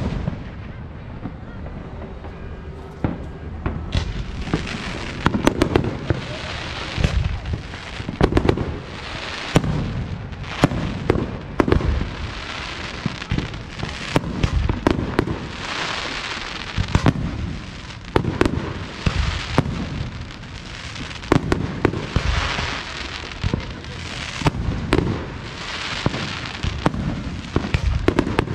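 Aerial fireworks shells bursting in quick, overlapping succession: many sharp bangs, each trailing into a low rumbling echo, with a steady hiss between them.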